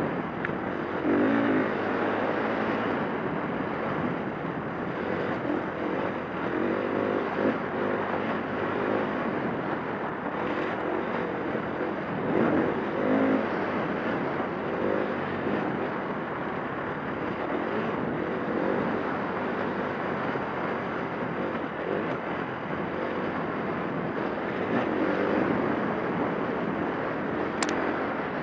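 2011 KTM 350 dirt bike's four-stroke single-cylinder engine under hard riding, the revs surging and easing every second or two as the rider works the throttle and gears, with a steady rushing noise underneath. A brief sharp click near the end.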